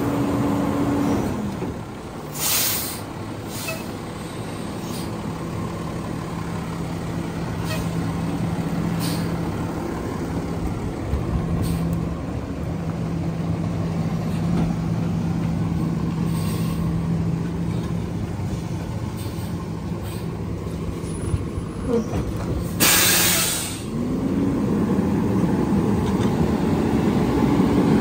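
Diesel engine of a Peterbilt 320 garbage truck running at raised revs, dropping to idle about a second in and holding there, then revving up again near the end. A short air hiss comes about two and a half seconds in and a longer, louder air brake hiss around twenty-three seconds.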